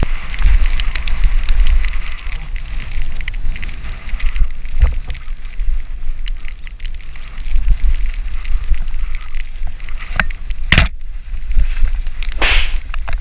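Mountain bike descending a wet, muddy trail, heard from a GoPro on the rider: wind buffeting the microphone as a low rumble, tyre and mud noise, and the bike rattling with many small clicks. A sharp knock from a jolt comes about eleven seconds in, followed shortly by a brief burst of hiss.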